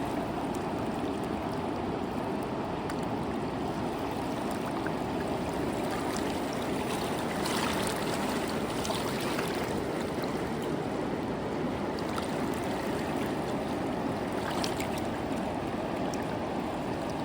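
Running water of a stream flowing steadily, with a few brighter splashes.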